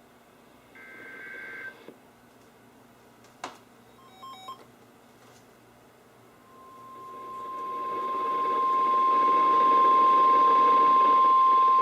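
NOAA Weather Radio warning alarm tone, a single steady tone near 1050 Hz, from a Sangean CL100 weather radio receiver. It starts about six and a half seconds in and grows steadily louder along with static hiss. Before it come a short burst of warbling digital data tones, a click and a few faint beeps.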